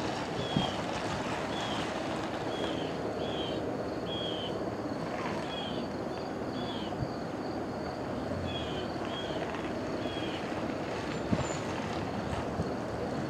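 Distant Long Island Rail Road diesel train approaching, heard as a low steady rumble mixed with wind on the microphone. A bird chirps over it in short, repeated high notes about once a second.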